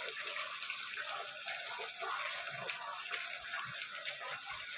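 Brown stew fish cooking in a pot with butter added, a steady sizzle and bubble with small scattered crackles.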